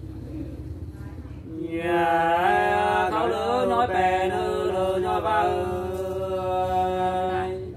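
Unaccompanied hát sli singing, a Nùng folk song form: a slow, drawn-out vocal line begins about two seconds in. It holds long notes with a wavering ornament in the middle and fades out just before the end.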